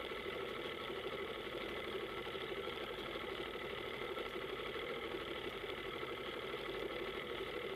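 Boat engine running steadily at an even, unchanging pitch, heard from on board.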